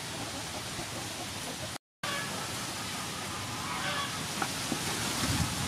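Steady outdoor background noise, cut off by a brief moment of silence about two seconds in, with a few faint clicks near the end.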